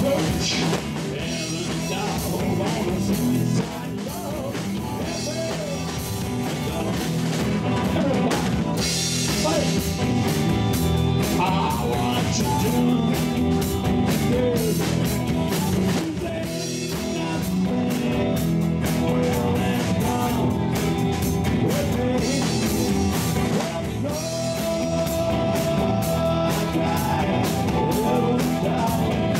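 Live band playing a rock-and-roll number: hollow-body electric guitar, electric bass, drum kit and fiddle, at a steady level throughout.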